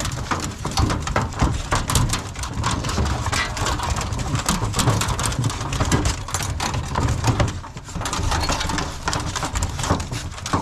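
Clattering and scraping of a plastic kennel door being worked into place against an aluminum dog box on a pickup bed, dense with short knocks, with beagles moving about inside.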